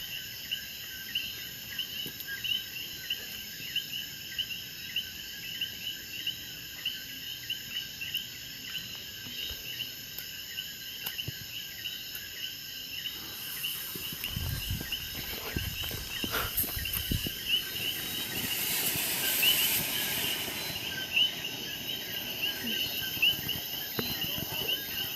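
Crickets chirping steadily in a rapid, even pulse. About halfway through, a broad hissing rush rises, swells for several seconds and dies away, with some low rumble as it builds.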